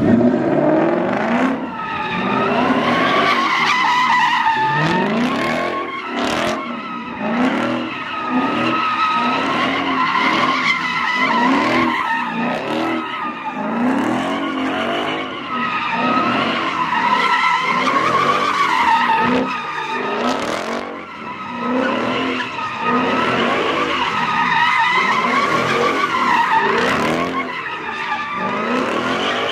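A car drifting in a sustained slide: the tyres squeal continuously with a wavering pitch while the engine revs up over and over.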